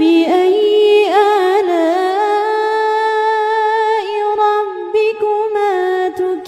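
A solo voice reciting the Quran in a slow, melodic chanted style, holding long drawn-out notes that bend gently in pitch, with short breaks for breath.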